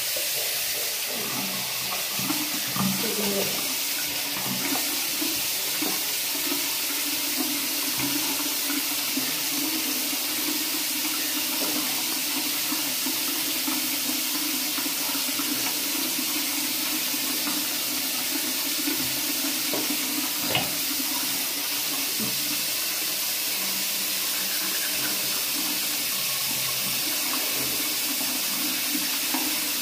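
Bathroom tap running steadily into the sink.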